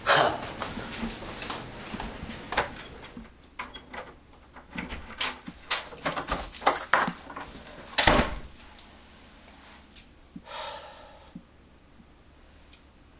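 Keys jangling and clicking, and a wooden dorm room door being opened and shut, with a heavy knock about eight seconds in.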